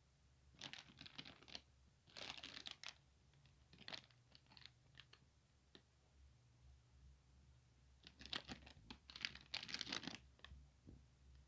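Packaging crinkling and tearing in several bursts as it is handled and opened, with quieter pauses between.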